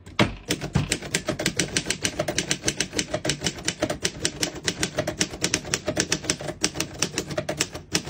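1940 Underwood Universal manual portable typewriter being typed on: a steady, quick run of keystrokes, about seven a second, as a sentence is typed out.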